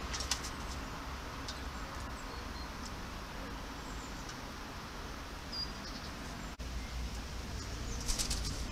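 A Eurasian collared dove's wings clapping in a quick burst of flaps as it takes off near the end, with a shorter flutter about a third of a second in. Under it runs a steady low rumble of distant traffic.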